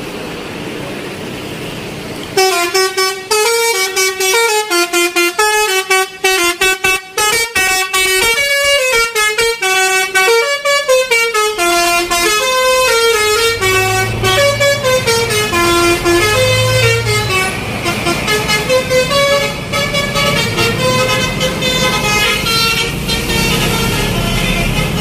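A bus's telolet basuri musical horn playing a tune: about two seconds in it starts a quick run of changing notes, which slows in the second half. From about halfway, a heavy bus engine's low rumble runs beneath it.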